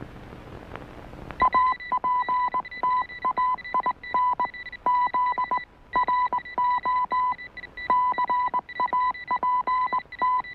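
Electronic beeping tone, keyed rapidly on and off in short and long beeps like Morse code, starting about a second and a half in with a brief pause near the middle: a radio-transmission signal sound effect.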